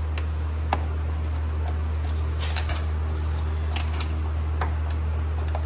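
Plastic push-pin button clip being pried out of a car's plastic underbody cover with a button plug tool: scattered small clicks and scrapes, with a short cluster of them about two and a half seconds in. A steady low hum runs underneath.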